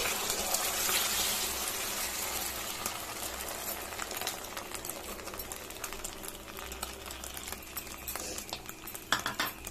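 Beaten eggs sizzling and crackling in hot oil in a kadai, loudest at first and slowly dying down as the omelette sets. A few light knocks near the end.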